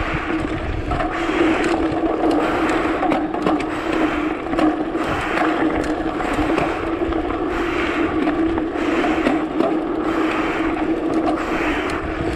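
Mountain bike descending a dirt trail at speed: tyres rolling and scraping over dirt and rock, with frequent rattling clicks and knocks from the bike, over a steady hum and recurring swells of rushing noise.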